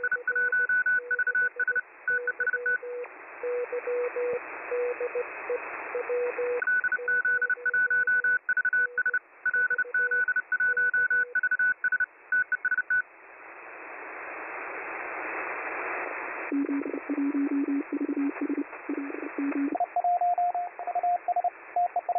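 Morse code (CW) signals on the 40-metre amateur band received through a WebSDR shortwave receiver: keyed beeping tones from two stations at once, one high and one low, over band hiss. About thirteen seconds in the beeps stop and only hiss remains, then new Morse signals come in, first low-pitched and then higher, as the receiver is retuned.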